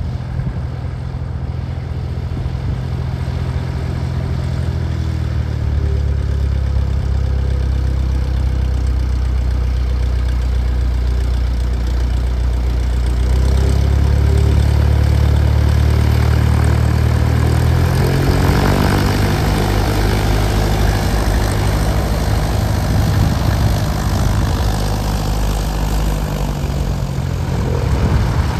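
Cessna 172 Skyhawk propeller engines running at taxi power close by, a steady low drone. It grows louder about halfway through as a plane comes near head-on, and the engine note shifts in pitch about two-thirds of the way in.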